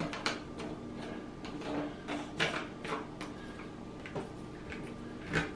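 Scattered light clicks and scrapes as a drain nut is turned by hand onto a sink's pop-up drain tailpiece, snugging it down onto the cone washer under a porcelain basin.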